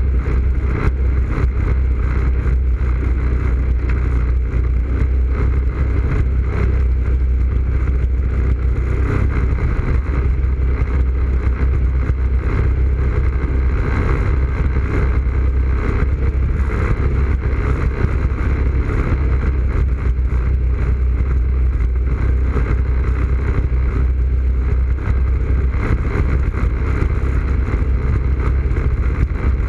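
ATV engine running at a steady speed along a trail, a constant low drone heard from a camera mounted on the quad's front rack.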